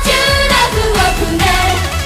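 Female J-pop idol group singing live over a pop accompaniment with a steady beat.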